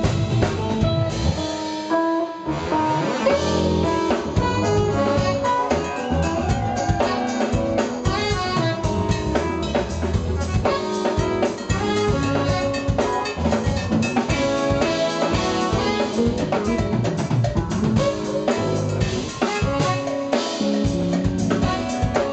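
Live jazz-fusion band playing: drum kit driving a steady beat under electric guitars, keyboards and horns, with saxophone and trumpet playing together.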